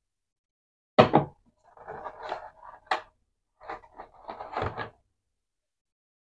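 Hard plastic clatter of a cordless drill battery pack, charger base and mains adapter being handled and set down in a plastic tool case: a sharp knock about a second in, then rustling of cables and light clicks and knocks, stopping about five seconds in.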